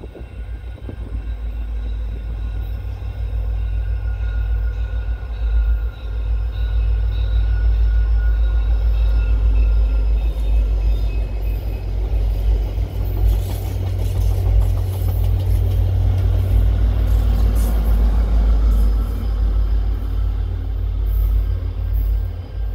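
Passenger train passing under diesel power: the F40PH-2 locomotives' EMD 16-cylinder two-stroke engines give a steady low rumble that swells as the train comes by. The coaches' wheels click over the rail joints for a couple of seconds in the middle.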